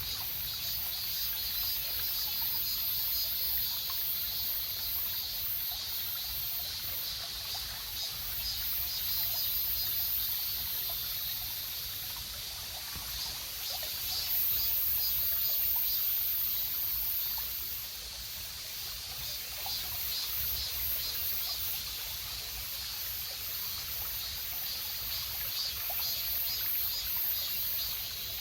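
Water trickling and running steadily, as in a stream or drainage channel.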